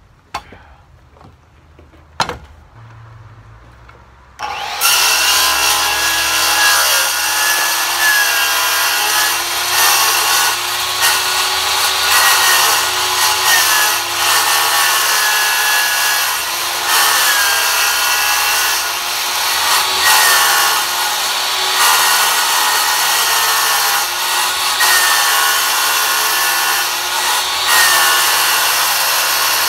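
A few sharp clicks, then about five seconds in a corded circular saw starts and runs steadily, cutting through a ribbed plastic septic tank riser, its motor whine wavering slightly as the blade is fed along the cut.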